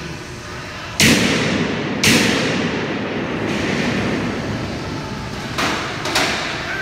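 Four sudden loud bangs on steel, echoing in a large metal shop: two about a second apart, then two more close together near the end. Each one trails off slowly.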